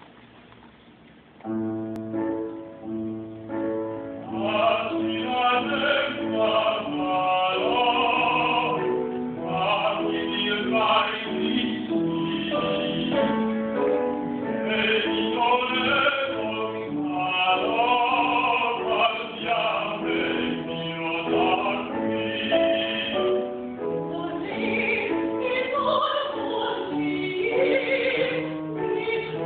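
A grand piano starts playing chords about a second and a half in, and a woman's voice soon joins, singing a classical, operatic song with a wavering vibrato over the piano.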